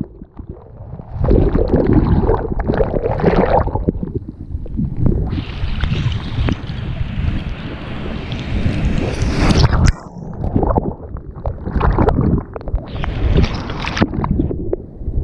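Rough, surging noise of water and wind buffeting a GoPro's microphone, with a hissier stretch that cuts off sharply about ten seconds in.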